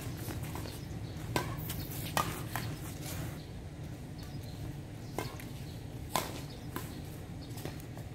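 Badminton rally: sharp cracks of rackets striking the shuttlecock, several at uneven spacing, over a steady low rumble.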